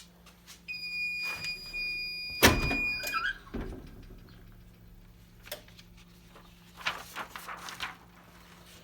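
Heat press: a steady high electronic beep for about two seconds, ending as the press is opened with a loud clunk and a brief squeak. Softer knocks and rustles follow as the press is handled.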